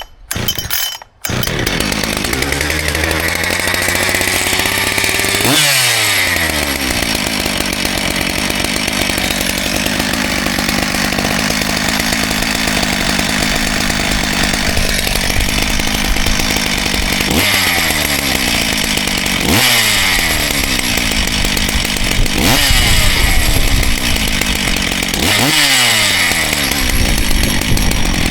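Husqvarna 570XP two-stroke chainsaw catching about a second in on a cold start, then running, revved up and back down several times. The saw has a freshly rebuilt top end and is being run in.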